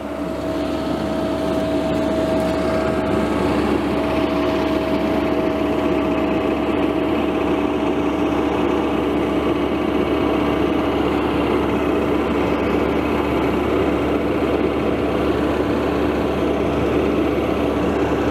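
Excavator engine running steadily, getting a little louder over the first couple of seconds and then holding, with a steady hum under it.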